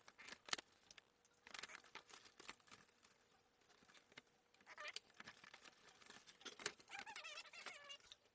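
Faint, fast-forwarded sound of a cardboard toy box being opened by hand: quick scattered rustles and clicks, with a couple of short high-pitched, chipmunk-like snippets of sped-up voice near the end.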